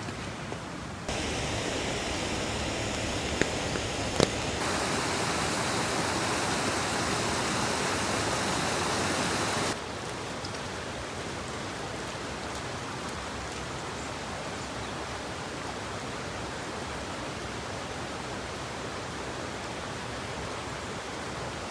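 Steady rushing of a small river. It steps up abruptly about a second in and again around four and a half seconds, then drops back suddenly near ten seconds, as between spliced shots. Two short sharp clicks come around three and a half and four seconds.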